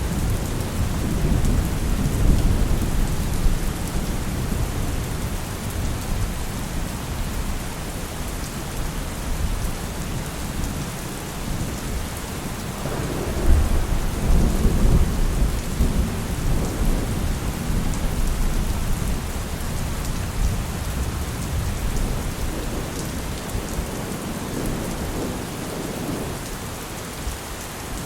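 Heavy rain falling steadily with thunder rumbling on and off underneath, a louder roll of thunder about halfway through.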